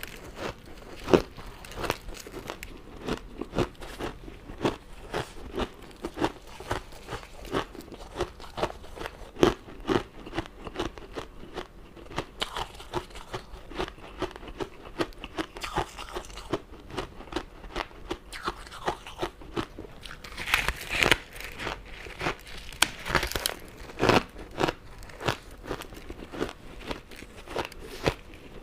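Close-miked eating of crunchy sugar candy: a run of crisp bites and crunches with chewing, thickening into a denser, sharper stretch of crunching about two-thirds of the way through.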